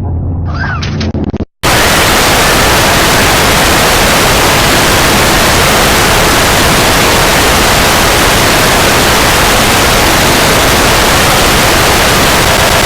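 Loud, steady white-noise static, like a television tuned to no channel. It cuts in about a second and a half in, after a moment of low rumbling noise and a brief dropout to silence.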